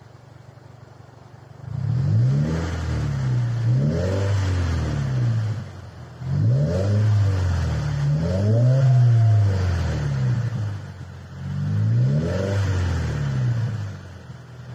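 Subaru WRX flat-four revved through a Kakimoto quad-tip aftermarket exhaust: it idles, then gets repeated throttle blips in three bursts, each rising and falling in pitch, before settling back to idle near the end. The exhaust note is deep and full rather than raspy.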